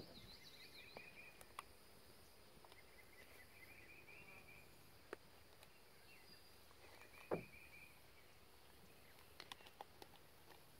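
Near silence outdoors: faint chirping comes and goes in the background, with a few small clicks and one soft knock about seven seconds in as rubber plucker fingers are worked into a PVC cap by hand.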